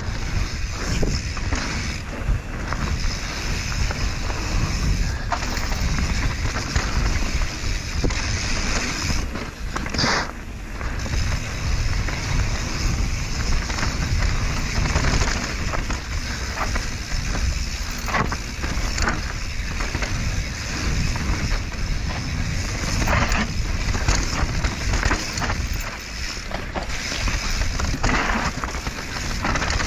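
Mountain bike descending a dirt singletrack, heard from a rider-mounted action camera: a steady rush of wind on the microphone and tyre noise, broken by frequent short rattles and knocks from the bike over roots and rocks.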